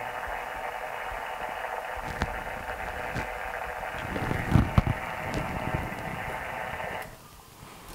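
Steady static hiss from the receiver speaker of a Yaesu HF transceiver tuned to the 40-metre sideband band. The hiss cuts off suddenly about seven seconds in as the radio is keyed to transmit for the antenna tuner's tune cycle. A few light clicks and some dull knocks around the middle come from a hand pressing the tuner's button.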